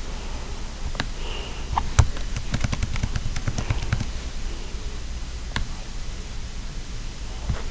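Scattered sharp computer clicks and taps, with a quick run of them about two and a half to four seconds in, over a steady low hum and hiss.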